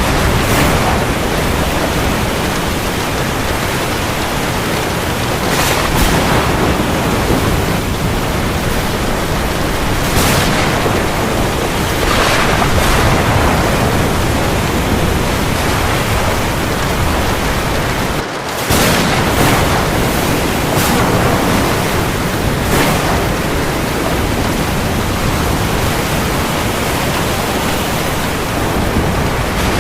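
Heavy rain falling on the sea: a dense, steady hiss with a few brief surges, dropping out for a split second about two-thirds of the way through.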